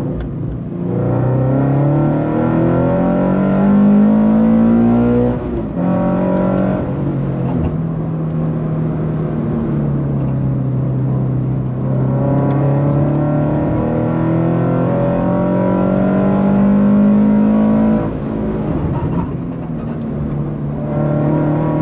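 Subaru BRZ's flat-four engine with a full catless exhaust and header, heard from inside the cabin, pulling hard under acceleration. Its pitch climbs, falls sharply about five seconds in, holds steadier, then climbs again and falls sharply near eighteen seconds.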